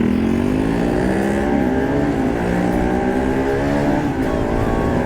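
Motorcycle engine pulling away and accelerating, its pitch rising and dipping briefly at gear changes about one and a half and four seconds in.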